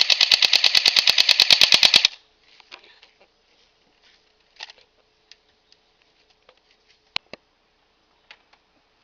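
Airsoft rifle, a Double Eagle Sig 556 replica, firing a rapid fully automatic burst of about two seconds at roughly a dozen shots a second, followed by a few faint scattered clicks.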